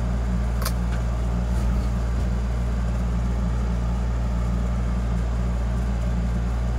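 A steady low hum runs throughout, with one short click just under a second in.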